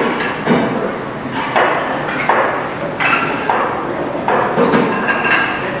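Serving utensils and dishes clattering at a buffet: a run of irregular clinks and knocks, roughly one a second or faster.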